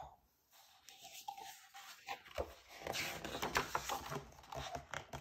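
A picture book's paper pages being turned by hand: irregular rustling and sliding of paper, starting about a second in.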